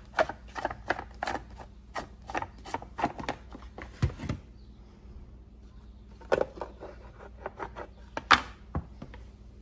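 Plastic clicking, about three clicks a second, as the knob on a Worx WG309 electric chainsaw's side cover is turned to undo the cover. The clicks stop about four seconds in. From about six seconds, hard plastic knocks and rattles follow as the cover is handled and set back over the drive gear, with the loudest knock a little after eight seconds.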